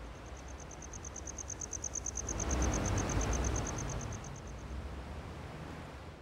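A cricket trilling: a high chirp pulsing about eight times a second, which stops about three-quarters of the way through, over a low, wind-like background that swells midway.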